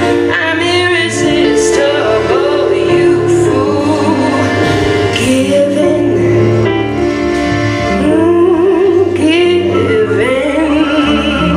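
Cabaret song: a woman singing with vibrato over instrumental accompaniment.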